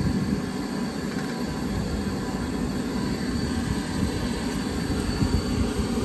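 Wind buffeting the microphone: a steady, gusting low rumble, with a faint steady hum underneath.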